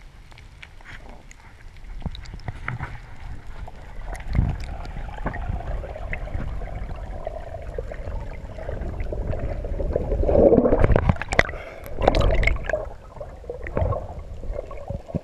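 Water gurgling and sloshing heard underwater, with many small clicks of bubbles, growing louder and with strong sloshing surges about two-thirds of the way through.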